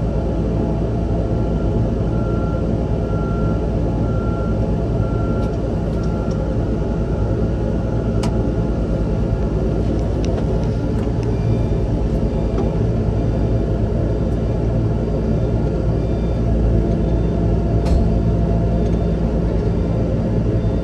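Engine of a Terex Quadstar machine running steadily at a low, even drone. For the first six seconds a beep pulses about once a second over it, and a fainter, higher beeping comes and goes later, with a few sharp clicks.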